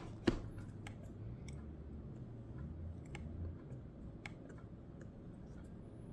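A few sharp plastic-and-metal clicks and taps from handling a wireless keyboard case and a tablet, including presses on the keyboard's trackpad. The loudest click comes right at the start, and the rest are spread out and irregular.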